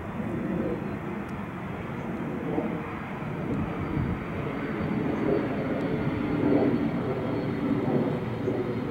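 Boeing 767 freighter's twin General Electric CF6 turbofans running as the jet rolls out along the runway after touchdown. A steady, dense jet rumble carries a faint high whine and grows somewhat louder in the second half.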